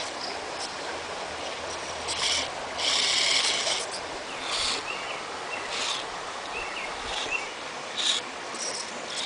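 Steady rush of a creek, with short, high-pitched buzzes from a 1/24-scale Losi Micro Rock Crawler's electric motor and gears as it is driven over the rocks in stop-start bursts; the longest buzz comes about three seconds in.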